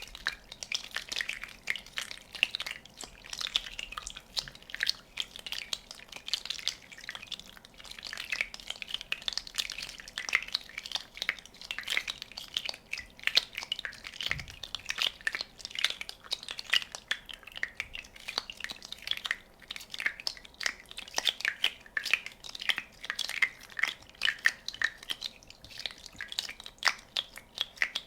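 Many small bubbles popping in a quick, irregular run of sharp little pops and crackles that never lets up.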